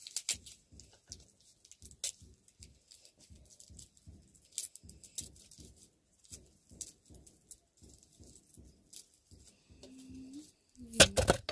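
Peeling a garlic bulb by hand with a small knife: a run of faint, irregular scrapes and clicks, with a couple of sharper clicks in the first five seconds.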